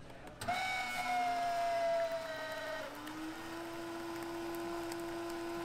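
Self-serve cappuccino machine dispensing French vanilla into a cup while its button is held: a motor whine starts about half a second in, sags slightly in pitch, then drops about three seconds in to a lower steady hum.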